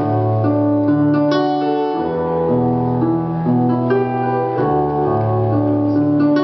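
Slow background piano music: held chords over a low bass line, changing every second or so.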